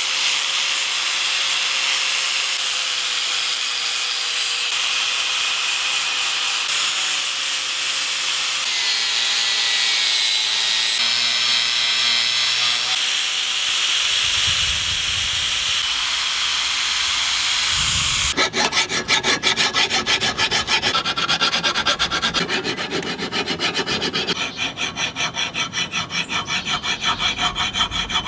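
Angle grinder with a sanding disc running against a steel axe head, grinding off scale, its motor whine shifting slightly in pitch as it is pressed in. About eighteen seconds in, it gives way to a hand file drawn back and forth along the axe's edge in quick, rhythmic strokes, sharpening it.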